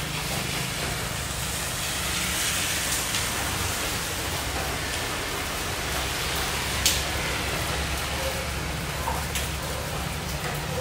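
Steady kitchen background noise: an even hiss over a low hum, with one sharp clink about seven seconds in.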